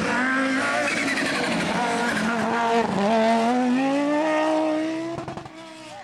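Audi Sport quattro S1 rally car's turbocharged five-cylinder engine under hard acceleration through a bend. The revs dip about halfway through, then climb in one long rising rev, and the sound fades near the end as the car pulls away.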